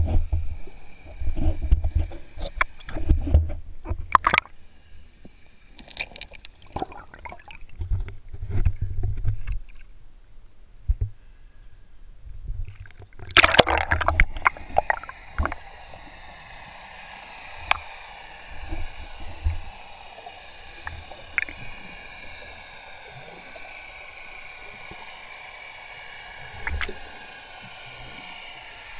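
Underwater sound through a camera's waterproof housing as a snorkeler swims. Water rushes and knocks against the housing in irregular low thumps for about the first ten seconds, with a loud splashing rush a little before halfway. Then comes a steady underwater hiss with a faint wavering whine and occasional ticks.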